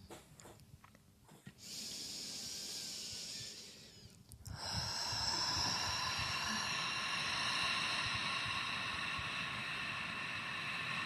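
A person breathing out forcefully through the mouth: a short hissing breath about a second and a half in, then from about four and a half seconds a long, steady hissing exhale with a faint whistle in it.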